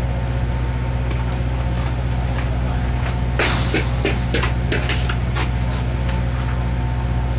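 Steady low machine-like hum with faint steady tones above it, and a quick run of clicks and knocks about three and a half to five and a half seconds in.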